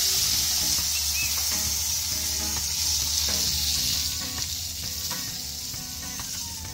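Minced pork and red curry paste sizzling in a hot pot as water is added. The hiss fades steadily and dies down toward the end as the water cools the pan.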